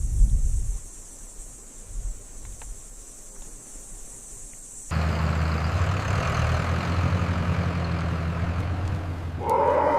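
A steady low engine rumble cuts in suddenly about halfway, after a quieter stretch. Near the end, a short call from an animal, a camel's groan, rises over it.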